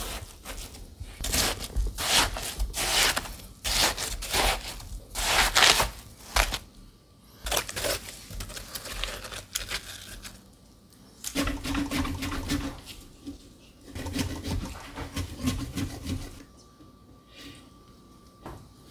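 Metal watermelon slicer and scoop scraping and cutting through the flesh of a watermelon in a run of strokes, hollowing out the melon. The strokes pause near the middle, pick up again, and die down near the end.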